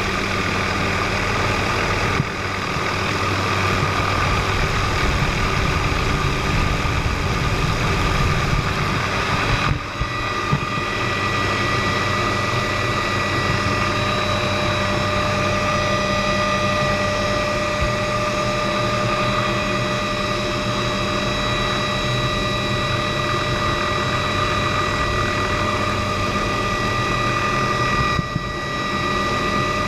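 Helicopter engine and rotor running steadily, a constant noise with a high whine over it, briefly broken three times.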